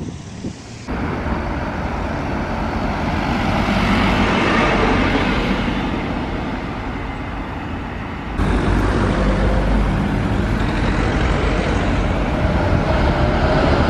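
A minibus drives along the lane and away, its engine and tyre noise swelling and then easing off. About eight seconds in the sound cuts to a bus standing at a stop with its engine running, a steady low rumble.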